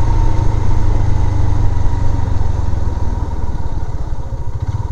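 Motorcycle engine running at low speed, easing down over the last second or two as the bike slows.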